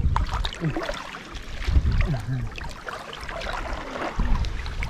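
Shallow water splashing and trickling, with three low rumbling thumps.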